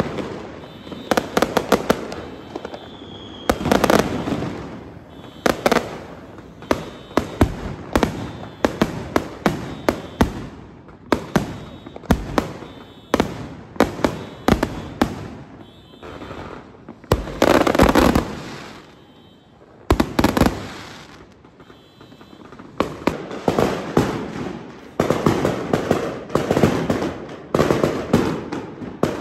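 Aerial fireworks bursting: a dense, near-continuous run of sharp bangs and crackles, with heavier blasts about four, eighteen and twenty seconds in.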